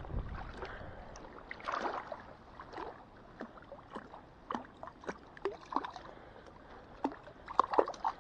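Small splashes and sloshing in shallow water, coming in short irregular bursts: a small hooked fish thrashing as it is pulled in to the shore.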